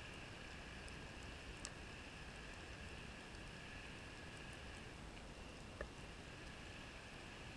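Underwater reef ambience heard through a camera housing: a steady low hiss with a faint constant whine, broken by a few sharp clicks, the loudest near the middle and a little over a second later.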